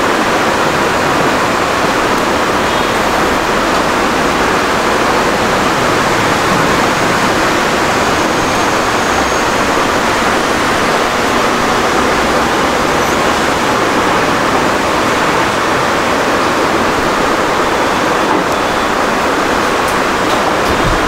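A steady, loud hiss of rushing air that holds level throughout, with no pitch and no breaks.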